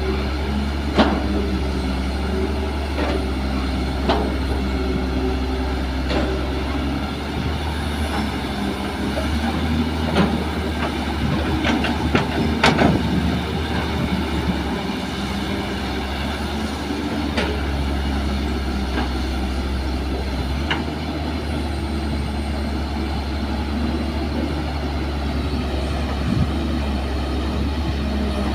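Kobelco SK200 hydraulic excavator's diesel engine running steadily as it digs and swings. Sharp metallic clanks and knocks come through it every few seconds from the bucket working the soil, the loudest a little under halfway through.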